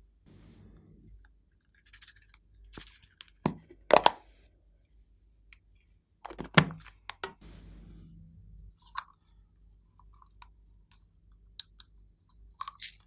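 Glossy slime being squeezed and worked by hand: sticky squelches with scattered sharp popping clicks of trapped air. The loudest pops come about four seconds in and again at about six and a half seconds.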